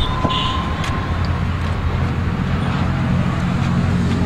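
Steady low rumble of road traffic, a motor vehicle engine running close by, with a few light clicks near the start.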